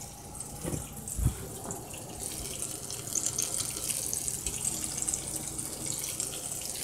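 Fish searing in a frying pan, the oil sizzling with a steady crackly hiss that grows louder from about two seconds in. A single thump about a second in.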